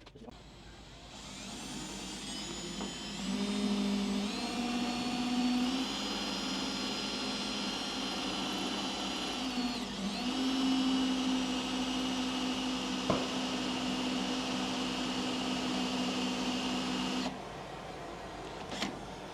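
Electric drill motor whining while drilling into a hard, rusted steel bolt. Its pitch shifts with the load a few times, there is one sharp click partway through, and the motor stops suddenly near the end.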